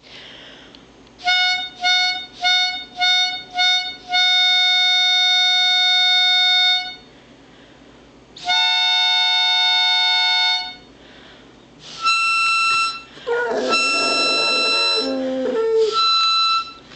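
Harmonica played: five short notes, then two long held chords, then more notes. About three quarters of the way through, a dog joins in with a wavering howl.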